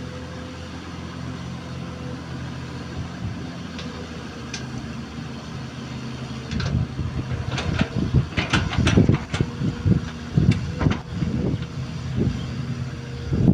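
XCMG XE215C excavator's diesel engine running steadily. From about halfway through, a series of irregular metallic clanks and scrapes comes in, louder than the engine, from the machine working.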